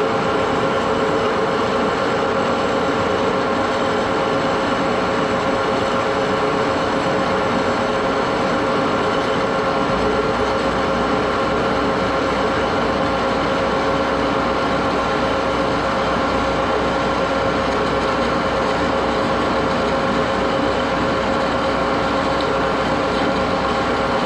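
1941 Axelson gear-head lathe running steadily, its gearbox giving a continuous whine of several steady tones. A low hum joins in about ten seconds in.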